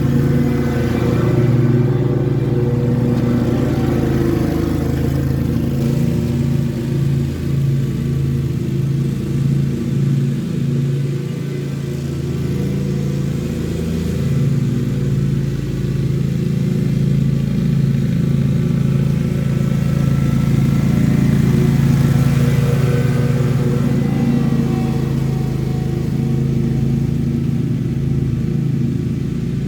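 Lawn mower engine running steadily, its level swelling and dipping a little.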